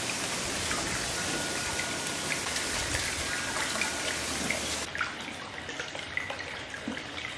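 Water running and splashing into a shampoo bowl as a client's hair is rinsed. A dense, steady spray for about the first five seconds, then softer running with scattered drips and splashes.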